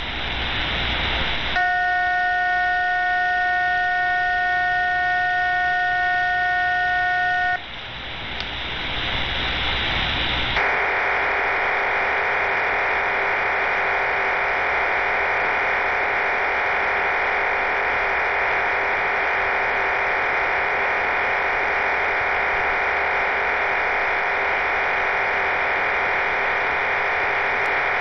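HM01 numbers station received over shortwave radio, sending its digital data signal. After a moment of hiss, a chord of several steady tones holds for about six seconds. Hiss returns for about three seconds, then a dense, steady data hiss with a faint steady tone takes over and keeps on.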